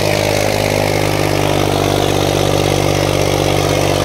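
Farmtrac 60's three-cylinder diesel engine running hard and steady under heavy load, dragging two harrows through the soil.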